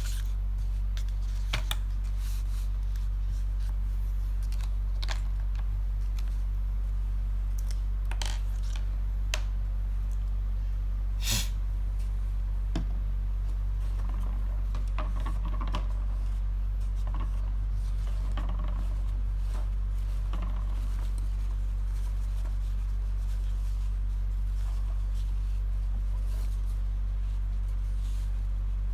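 A steady low electrical hum, with paper sheets rustling and a few light clicks as they are handled and laid out on a desk, mostly in the first twenty seconds. One sharper click comes about eleven seconds in.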